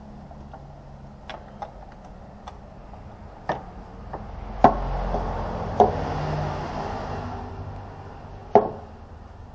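Hands working over an engine: a few light ticks, then four sharp knocks or clacks of parts being handled, one about a second in from the middle and the last near the end. Between them is a stretch of rustling and scraping as wiring is moved about.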